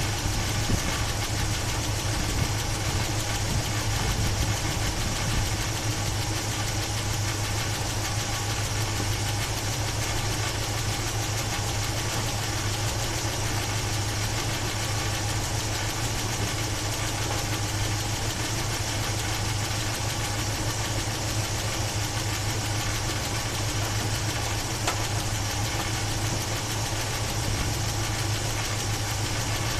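Chevy 350 small-block V8 idling steadily under the open hood, with no revving. This is the engine with the top-end noise under investigation, which the owner thinks sounds like a bad valve rather than lifter ticking, and hopes is only old gas.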